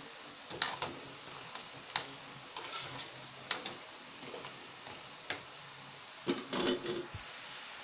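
Moong dal pakodas deep-frying in hot oil with a steady sizzle. A metal slotted skimmer turns them over, clinking against the metal pot several times.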